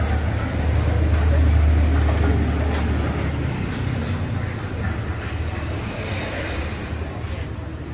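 Mahindra 475 DI tractor's four-cylinder diesel engine idling with a steady low rumble, louder for the first few seconds and softer after about three and a half seconds.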